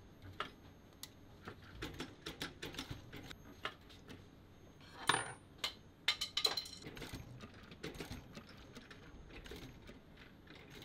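Mitsubishi industrial sewing machine stitching leather slowly in short runs: a series of irregular clicks and knocks from the needle and mechanism, with a louder short burst about five seconds in.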